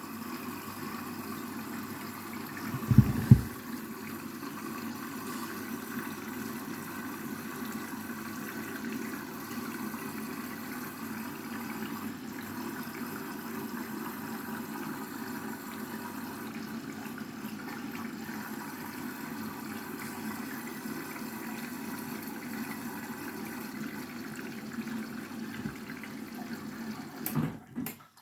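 Candy washing machine filling with water at the start of its cycle: a steady rush of water coming in, with one loud thump about three seconds in. The sound stops abruptly near the end.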